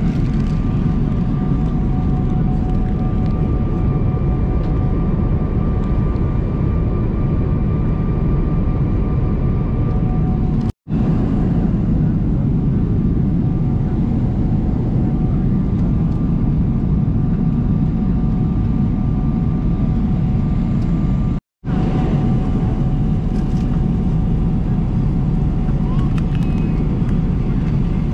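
Steady airliner cabin noise inside a Boeing 777-300ER in flight: a loud, even low rush of airflow and engine noise with two faint steady tones above it. It cuts out suddenly to silence twice, about 11 and 21 seconds in.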